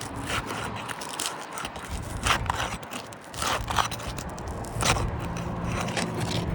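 Asphalt roof shingles being pried apart, with short sharp scrapes and crackles as the sealant strip is torn loose, pulling away part of the shingle mat. A steady low hum comes in near the end.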